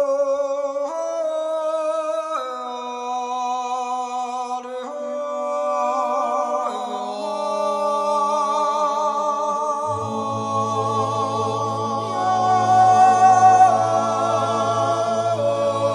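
Background music of a cappella singing: several voices hold long notes with vibrato, the chord changing every second or two. A low part comes in about ten seconds in.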